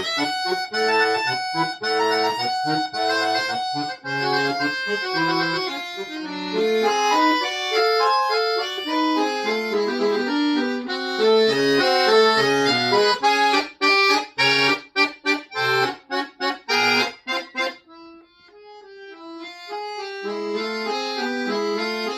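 Accordion playing a busy, fast-moving passage over short stabbed bass notes. About two-thirds through it breaks into a run of sharp, detached chords, then drops suddenly to a soft single line that swells back up near the end.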